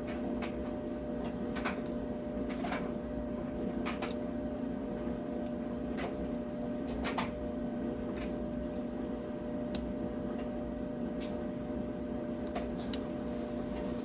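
Steady hum of a running washer and dryer, with scattered light clicks from a short hook pick and tension wrench working the pins of a cable gun lock.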